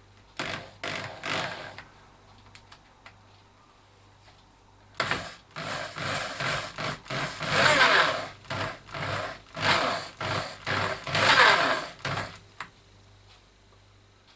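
Pistol drill spinning a 16 mm ballscrew on the Z-axis, driving the ball nut and carrier along it. It runs briefly about half a second in, then again from about 5 s to 12.5 s, swelling and easing repeatedly.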